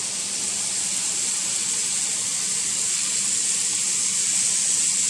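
Shredded cooked chicken with garlic and red onion sizzling steadily in oil in a pot over medium-high heat: an even high hiss.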